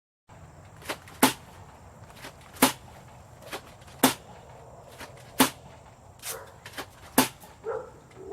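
Airsoft gun firing single shots at a steady pace, a sharp crack about every second and a half, each with a fainter click just before it.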